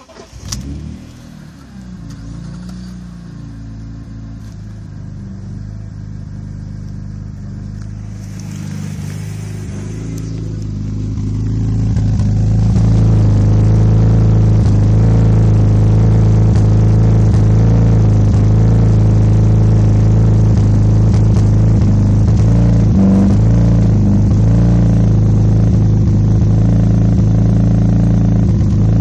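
BMW E46 M3's S54 straight-six idling after a short burst at the very start, getting louder over the first dozen seconds and then running at a steady pitch. The owner suspects a rough idle or misfire.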